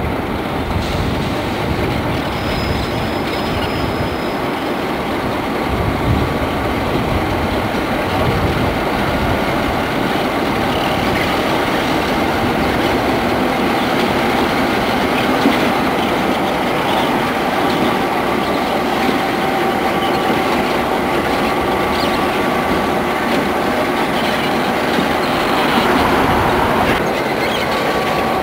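A group of EMD GP16 diesel-electric locomotives running light through a rail yard, their diesel engines running steadily. Thin wheel squeal and clacking over the rails come through.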